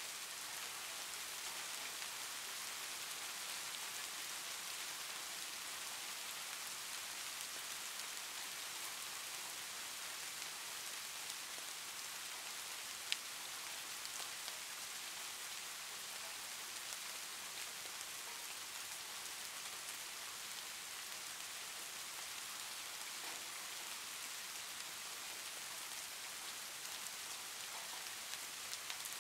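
Soft rain ambience: an even, steady hiss of rain falling, with a single sharp tick about halfway through.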